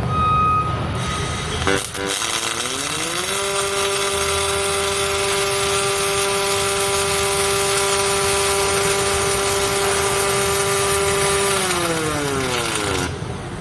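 Motor whine of robotic welding equipment: after a click it rises in pitch, holds steady for about eight seconds, then falls away and stops, over a steady hiss.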